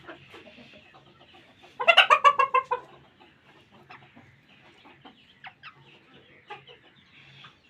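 A chicken gives a loud burst of rapid clucks about two seconds in, lasting about a second, followed by faint scattered clucks.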